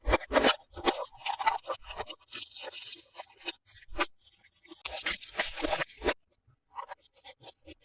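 Toy packaging being handled and opened: irregular scraping, crinkling and clicking strokes, with a brief near-quiet pause about six seconds in.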